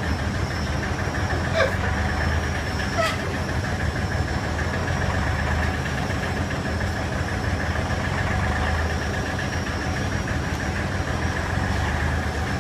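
Baggage conveyor belt running with a steady mechanical hum, with two short clicks about a second and a half and three seconds in.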